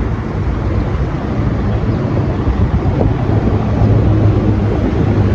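Steady low rumble of a moving vehicle, with wind buffeting the microphone; the low engine hum grows a little stronger about four seconds in.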